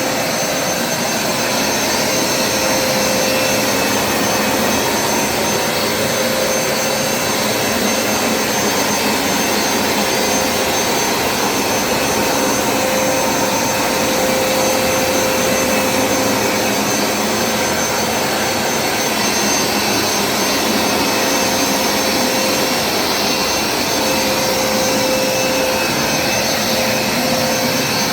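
Hoover SmartWash Pet automatic carpet cleaner running steadily: a constant motor whine over a rush of suction air.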